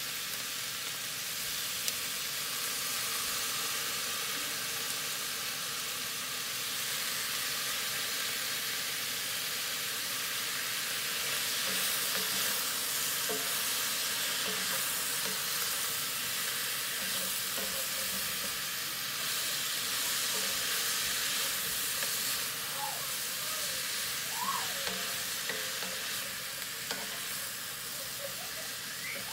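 Vegetables and shredded chicken sizzling steadily in a hot cast-iron skillet while a wooden spoon stirs and tosses them, scraping against the pan.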